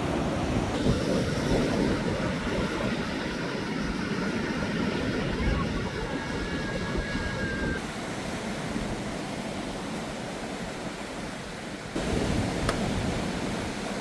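Sea waves washing ashore, with wind rumbling on the microphone. The level steps up suddenly about twelve seconds in.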